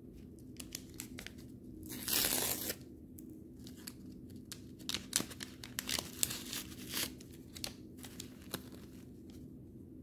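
A paper tea bag wrapper is torn open once, about two seconds in. From about five to nine seconds it is handled and crinkled in a run of small crackles.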